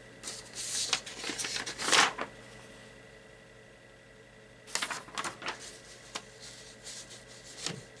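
Sheets of printer paper rustling and being leafed through, in two spells with a quiet pause of about two seconds between them.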